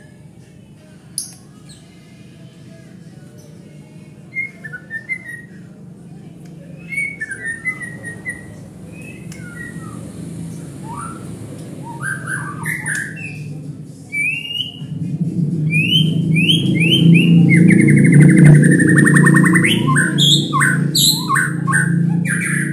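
White-rumped shama singing: a varied string of short whistled notes, pitch glides and rapid trills, sparse at first and growing louder and denser after about fifteen seconds. A low steady hum swells underneath in the second half.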